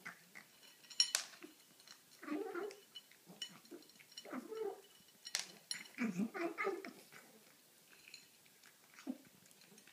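Cat making short, strange vocal noises as it eats, a few brief calls a second or two apart mixed with chewing, and two sharp clicks about a second in and past the middle.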